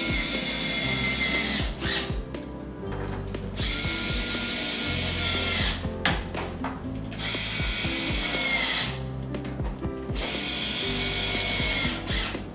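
Power drill/driver run in four bursts of about two seconds each, a high whine whose pitch drops as the trigger is released at the end of each burst, with background music underneath.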